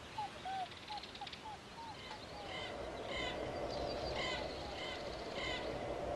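Forest ambience of bird calls: short falling calls, a few a second, die away in the first two seconds, then higher chirping calls come about once a second over a steady hiss.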